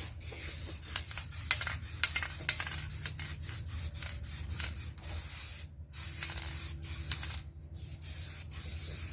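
Aerosol can of Krylon Rust Protector direct-to-metal paint spraying in a steady hiss, cut off briefly twice, about six and seven and a half seconds in, as the nozzle is let go.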